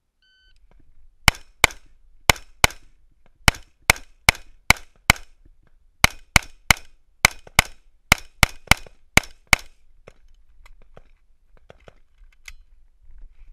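A short electronic beep from a shot timer, then an AR-15 rifle firing about nineteen shots, mostly in fast pairs, over about eight seconds. The shooting stops and only faint clicks of the rifle being handled follow.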